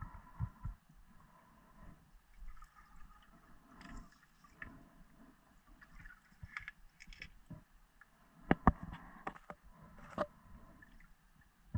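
Muffled underwater knocks, clicks and scrapes as a diver moves with the camera through the water. The loudest few knocks come about eight and a half seconds in and one more about ten seconds in.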